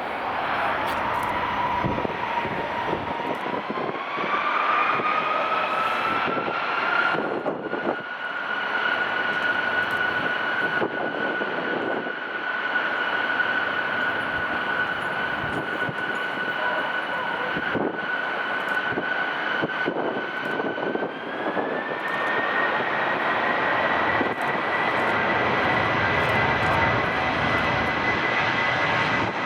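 Airplane engines running with a steady whine over a rushing noise; the whine steps up in pitch about four seconds in and again about twenty-one seconds in.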